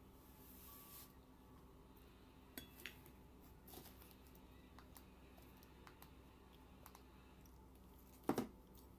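Near silence with a few faint clicks and handling noises as a boiled egg, a spoon and a plastic-wrapped package are handled, and one sharper knock near the end.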